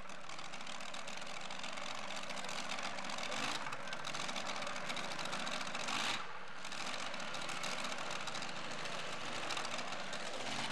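Pulling truck's open-header engine idling unevenly after its pull, with a short rise in revs about three and a half seconds in.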